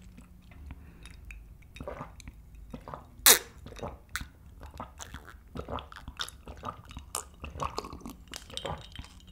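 Close-miked gulping of barley tea from a glass mug: a run of swallows and wet mouth sounds, with one sharp click about three seconds in.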